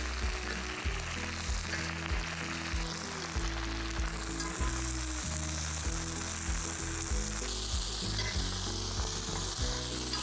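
Spring onions and meat sizzling in hot oil in a wok over an open fire, stirred and scraped with a wooden spatula.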